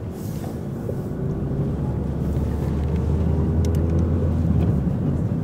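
Ford Fiesta's engine and road noise heard from inside the cabin as a low, steady rumble, growing louder as the car gathers speed.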